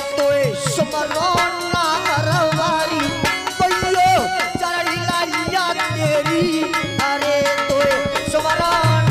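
Devotional Hindi folk song: a male voice singing a sustained, bending melody over music with a steady hand-drum beat.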